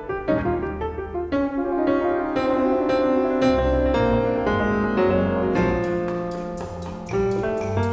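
Instrumental background music led by piano.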